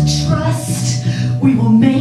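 A woman singing amplified through a handheld microphone over an instrumental accompaniment with a repeating low bass-note pattern.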